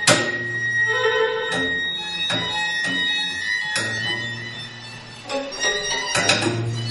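A live string ensemble with violins and cello plays a contemporary chamber piece: sustained bowed notes broken by sharp, accented attacks, the strongest right at the start and a cluster about six seconds in.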